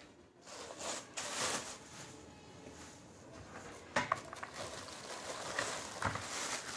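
Clear plastic packaging bag rustling as a portable gas stove is unwrapped and handled, with two short knocks about four and six seconds in as the steel burner plate is set into the stove's black plastic carry case.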